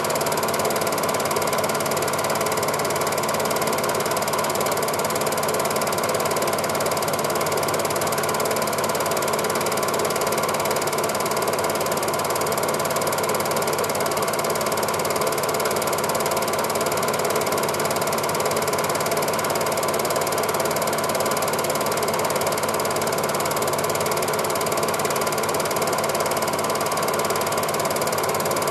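Film projector running: a steady, unchanging mechanical clatter and whirr from its film-advance mechanism and motor.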